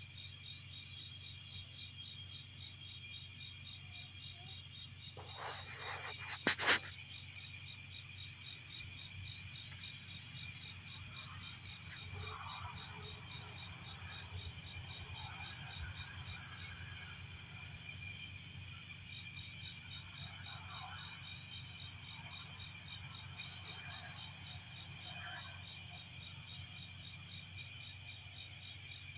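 A chorus of crickets: a steady high trill with a second, rapidly pulsing chirp beneath it, which drops out briefly past the middle. A short sharp knock comes about six and a half seconds in.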